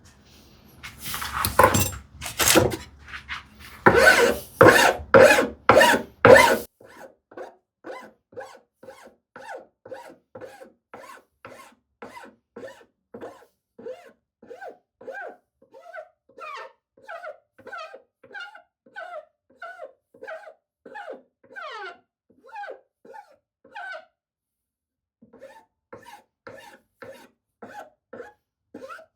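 Hand rasp and file strokes shaping the rounded corner of a wooden leg. The first six seconds or so hold loud, rough rasp strokes. After that comes a quieter, steady run of lighter strokes, about two a second, with a short pause near the end.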